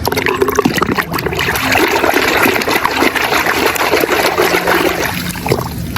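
Water running and splashing over a toy as it is rinsed clean.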